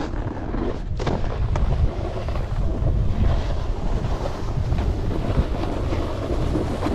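Wind buffeting the camera microphone: a steady low rumble with no clear tones, and a couple of faint clicks about a second in.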